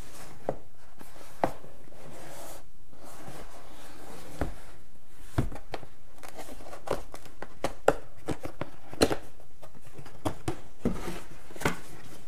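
Cardboard camcorder packaging handled and opened by hand: irregular taps, scrapes and rustles of the box and its flaps, sparse at first and busier from about five seconds in.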